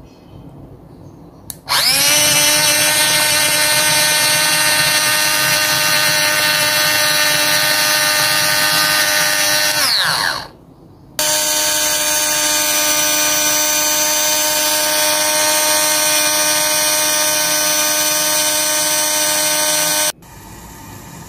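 An electric mini food chopper's motor whining loudly as it purées boiled whole tomatoes. It runs in two long pulses: the first spins up and winds down, and after a short pause the second starts and cuts off sharply.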